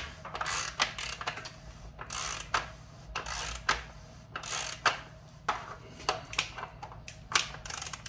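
Hand tool turning a part at the bottom bracket of a carbon bicycle frame, clicking in quick, irregular strokes.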